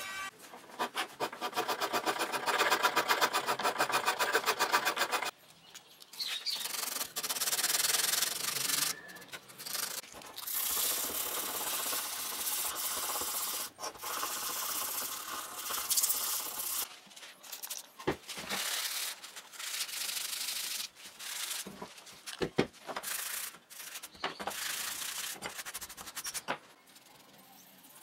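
Hand-sanding a wooden knife handle with sandpaper. For about five seconds come rapid, even back-and-forth strokes, then slower, uneven rubbing with short pauses, which stops near the end.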